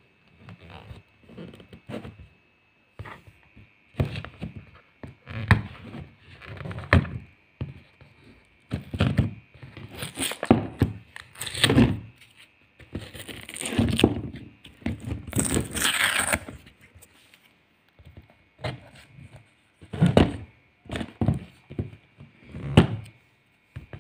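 Paper seal stickers being picked, peeled and torn off a small cardboard box, with irregular thunks and scrapes as the box is handled and knocked about. There are several longer ripping sounds in the middle.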